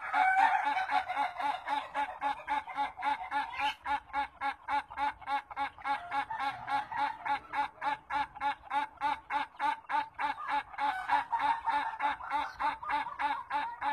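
Rooster giving a long laughing call: a steady, unbroken run of quick cackling notes, about four to five a second.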